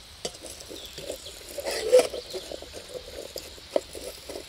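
A spoon stirring onions frying in oil in a metal camping pot: a series of short scrapes and taps against the pot, the loudest about two seconds in, over a faint sizzle.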